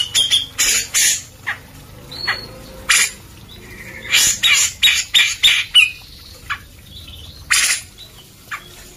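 Grey-cheeked bulbul (cucak jenggot) calling in short, harsh, rasping notes: scattered singles, then a quick run of about six notes about four seconds in.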